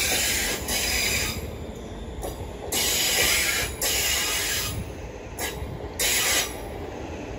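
London Northwestern Railway Class 350 Desiro electric multiple unit rolling slowly past into the platform. A low rumble runs under about five short bursts of hissing, each up to about a second long.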